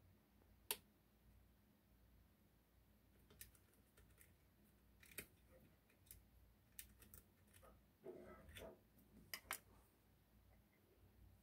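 Abloy Exec disc-detainer lock being worked with its key: a sharp metallic click less than a second in, then a scattered run of lighter clicks and a brief rustle of handling.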